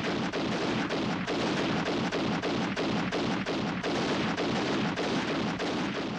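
Rapid, continuous pistol gunfire from a film soundtrack, the shots coming about four a second without a break.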